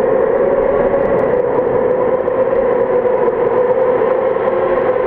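Motorcycle engine running at a steady, held speed inside a road tunnel, giving one unbroken engine note with no shifts or breaks.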